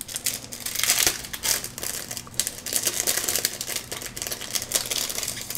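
Clear plastic bag crinkling irregularly as gloved hands open it and draw out a thin lens shim.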